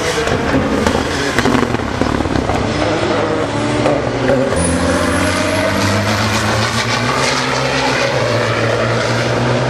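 Turbocharged racing engine running at speed; its pitch steps to a new level about halfway through, and a faint high whine rises through the second half.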